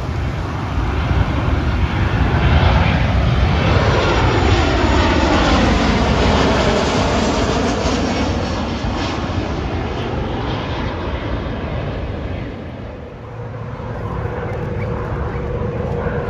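Jet engines of a Ryanair Boeing 737 on approach with its gear down, passing low overhead: the jet noise swells, sweeps in pitch as the airliner goes over, then eases off. After a dip about three-quarters through, a steadier hum with one held tone follows from a passing helicopter.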